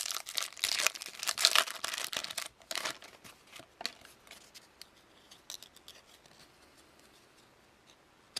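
Trading card pack wrapper being torn open with a crinkly tearing sound for about two and a half seconds, then a few light clicks and rustles as the cards are handled.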